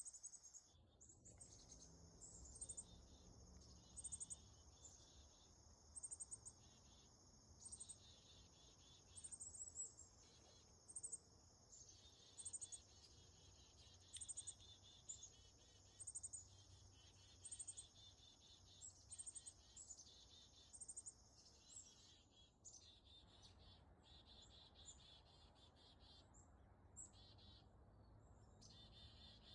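Faint outdoor field recording: a steady high insect trilling, like crickets, with short high chirps that repeat about every one and a half seconds.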